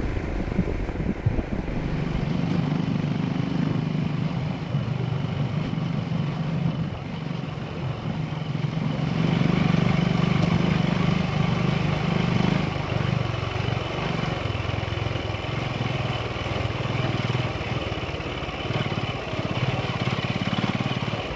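Royal Enfield Himalayan motorcycle engine running steadily while being ridden, growing a little louder about nine seconds in.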